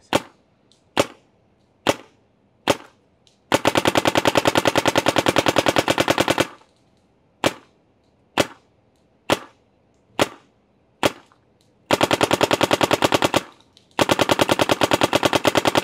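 Planet Eclipse 180R paintball marker firing with its stock barrel, each shot a sharp compressed-air pop. There are four single shots, then a rapid ramping string of about three seconds, five more single shots a little under a second apart, and two more rapid ramping strings near the end.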